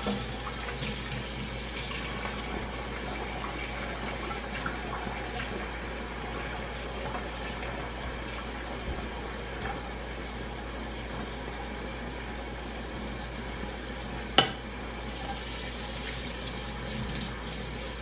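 Kitchen tap running steadily into the sink while dishes are washed by hand, with one sharp knock of dishware about fourteen seconds in.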